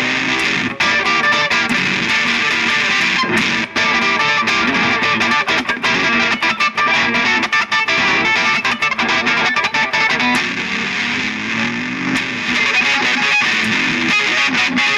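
Noise-rock instrumental: a distorted, effects-laden ukulele being strummed and picked in a dense, loud wash of notes.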